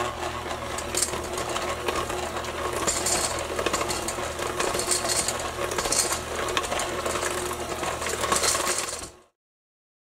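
Electric hand mixer running with its wire beaters clattering and scraping against a stainless steel bowl as they mix brownie batter. It cuts off suddenly about nine seconds in.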